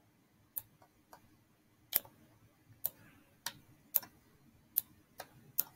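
About ten short, sharp computer clicks at irregular intervals, the clicks of a pointer button as on-screen sliders are clicked and dragged.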